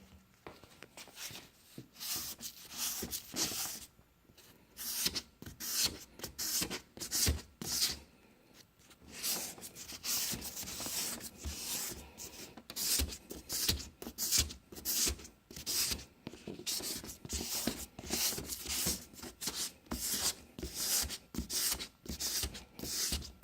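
Hand sanding pad scrubbing a plastic headlight lens wetted with restoration-kit lubricant, a long run of quick back-and-forth rubbing strokes with a couple of short pauses.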